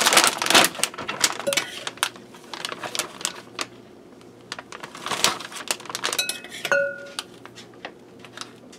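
Plastic vacuum-sealer bag crinkling and rustling, with scraping and clinking against a ceramic bowl, as marinade and red onion slices are put into the bag. A short ringing clink comes about two-thirds of the way through.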